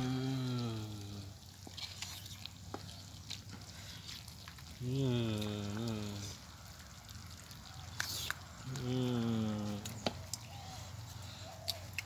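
Three low drawn-out calls, each about a second long and roughly four seconds apart, with a wavering pitch. Between them, faint clicks and scrapes of a metal ladle in a clay pot as curry is served.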